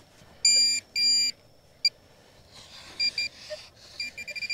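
Minelab Manticore metal detector giving target tones: two beeps of about half a second each, then a sharp click, then shorter, fainter beeps and a quick run of rapid beeps near the end. The response is erratic, 'a little bit all over the place', from a buried fish tin.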